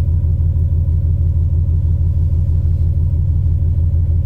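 LQ4 6.0 L V8 idling at a stop with a steady low drone and a slight uneven pulse, chugging a little. It is a developing misfire, traced to a bad spark plug wire.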